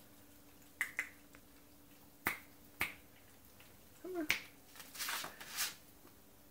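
Finger snapping: about five sharp snaps at irregular intervals, as if calling a cat over.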